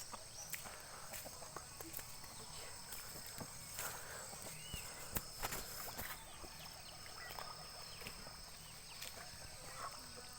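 Faint rural outdoor ambience: a steady high insect drone, with scattered light clicks and knocks and a short rising-and-falling chirp about five seconds in.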